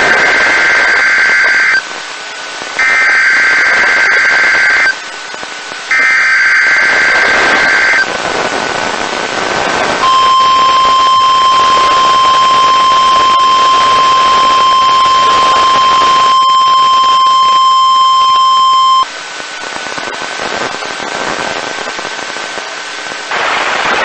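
NOAA Weather Radio Emergency Alert System signal: three SAME header data bursts, each a harsh warbling digital tone lasting about two seconds with a one-second gap, then the steady 1050 Hz warning alarm tone held for about nine seconds. It cuts off into radio hiss. The sequence announces an incoming alert, here a tsunami watch.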